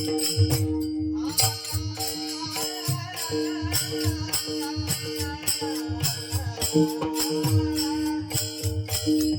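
Kirtan devotional music: a steady drone with drum and percussion keeping a regular beat, and a wavering melody line coming in about a second in.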